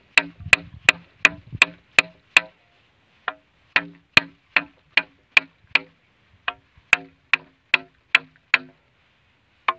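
A hammer tapping in quick, even blows, about three a second, each a sharp knock with a short low ring, pausing twice for about a second. It is seating a black LDPE hose and its hose clamp on the outlet of a 32 mm tapping saddle.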